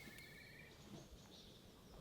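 Near silence: faint forest ambience, with one brief, high, rapidly pulsed trill in the first second.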